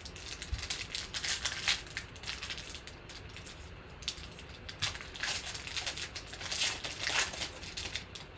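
Crinkling and rustling of trading-card pack wrappers and cards being handled, in two spells: one in the first couple of seconds and another from about four seconds in.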